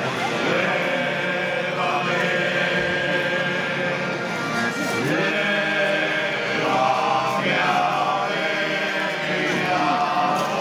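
A Galician folk group of men singing together in phrases, a traditional song with a drum beside the voices.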